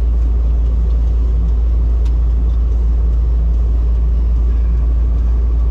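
Truck driving, a steady low rumble with road noise throughout.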